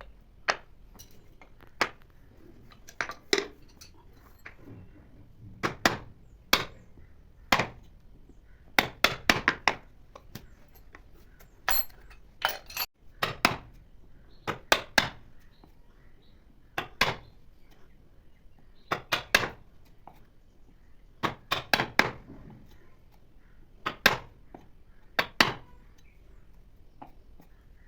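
Sharp taps and clinks of hand tools striking wood and metal, coming in small clusters of two to four knocks every second or two, irregular like hand work.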